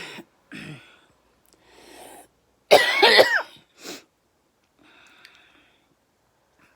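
A person coughing several times, with the loudest, strained cough about three seconds in, then a quieter wheezy breath. It is the cough and wheeze left by a chest infection.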